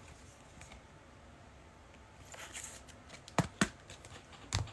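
Quiet room tone, then soft rustling of trading cards being handled, with two sharp taps a little past halfway and another near the end as the cards are knocked or set down on a table.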